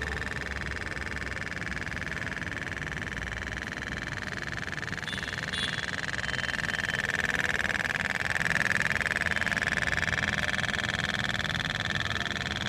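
Toy pop-pop steam boat running: a rapid, steady putt-putt popping from its flame-heated boiler, louder in the second half.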